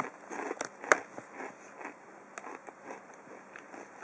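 Crunching of Takis Fuego rolled tortilla chips being bitten and chewed: two sharp crunches about half a second and a second in, then a run of smaller crackles.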